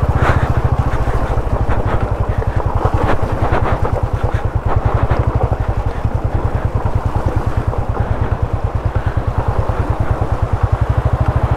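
Motorcycle engine running steadily at low speed, pulsing evenly, over a rough rocky track. Clattering knocks from the bike and stones come in the first half.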